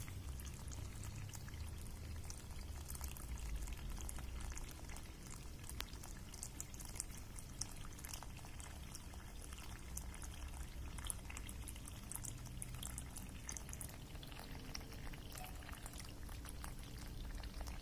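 Water running steadily, with a continuous scatter of small splashes and ticks over a low rumble.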